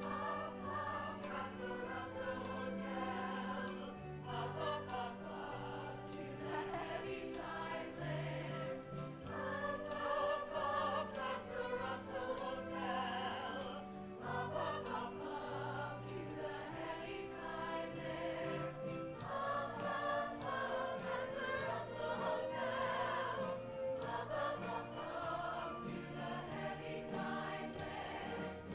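A musical-theatre company chorus singing in full harmony, with sustained low notes in the accompaniment beneath.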